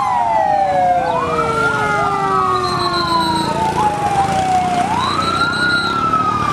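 Fire engine sirens wailing, several at once: the main wail rises quickly about a second in and again about five seconds in, each time falling away slowly, with other sirens sweeping up and down over it.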